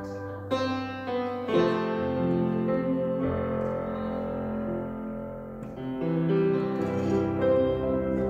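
Grand piano being played: slow, held chords, with new chords struck about half a second in and again a second later, then several more in the last few seconds.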